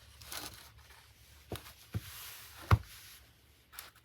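Quilting fabric and its packaging being handled: brief soft rustles and a couple of small clicks, with one sharper knock, the loudest sound, a little under three seconds in.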